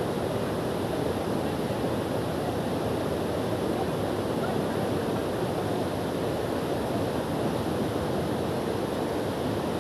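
Steady rush of fast-flowing floodwater in a swollen stream, an even, unbroken noise.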